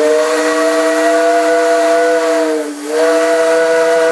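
Loud steam whistle blowing a chord of several notes at once over the hiss of escaping steam. The pitch sags briefly about two and a half seconds in, then the whistle carries on.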